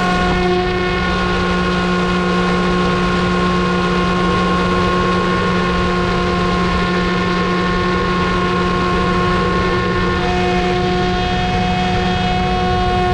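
RC airplane's electric motor and propeller running at a steady high throttle: a loud, even whine made of several held tones.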